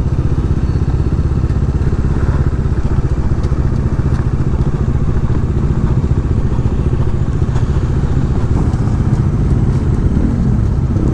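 Bajaj Dominar 400's single-cylinder engine running steadily while riding, with a fast even low pulsing of firing strokes and a layer of wind and road noise.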